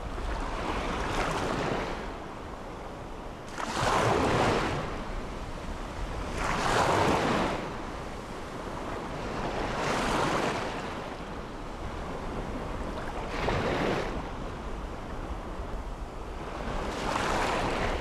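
Small sea waves breaking and washing up a sandy beach, six in turn about every three seconds, each a swell of rushing surf noise that rises and fades. A low wind rumble on the microphone runs underneath.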